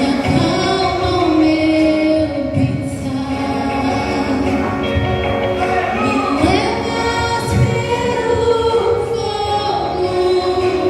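Church vocal group singing a gospel song together, with melodic lines held and gliding over instrumental accompaniment with a steady low beat.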